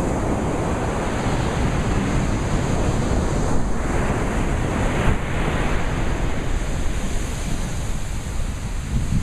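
Ocean surf: a steady rush of waves washing on a shore, with one wave swelling louder and brighter about four seconds in before settling back.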